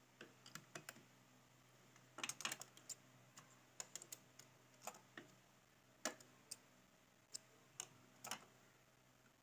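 Faint, irregular clicks and small taps from hands working at a stopped domestic sewing machine, pulling the thread and handling the parts around the needle; the machine itself is not running.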